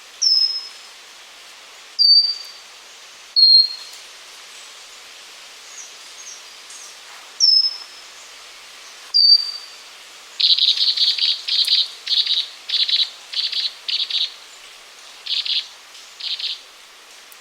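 Pygmy wren babbler (Pnoepyga pusilla) singing: five thin, high whistled notes spaced one to four seconds apart, each dipping slightly and then held. From about ten seconds in come about nine short, rapid chattering bursts.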